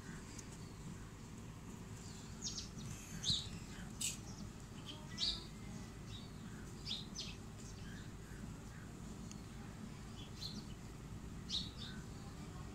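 Short, high bird chirps at irregular intervals over a faint steady low hum.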